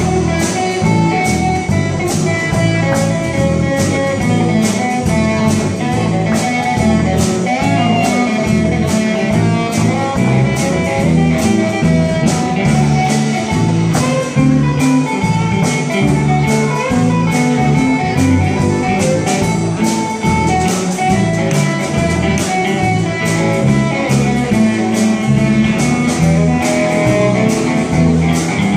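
Live blues band playing an instrumental: two electric guitars, bass guitar and a drum kit keeping a steady beat.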